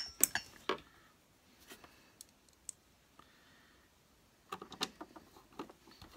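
Plastic parts of an Electrolux The Boss vacuum cleaner's bag compartment being handled and fitted, giving sharp clicks and knocks. There is a quick cluster of clicks in the first second, a few light ticks after it, and another cluster of clicks about four and a half seconds in.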